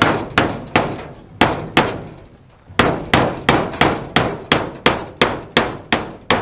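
Hammer driving nails into the wooden wall framing, at about three blows a second, pausing for about a second roughly two seconds in, then resuming.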